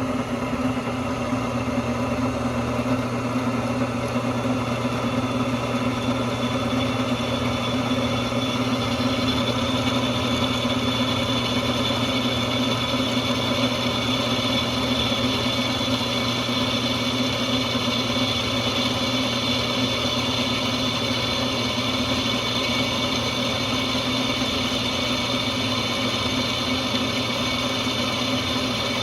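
Benchtop drill press's electric motor running steadily with an even mechanical hum and whine.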